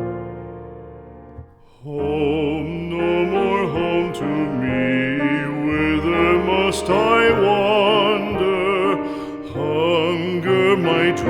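Music: a piano chord fading away, then, about two seconds in, a solo voice singing a slow song with strong vibrato over piano accompaniment.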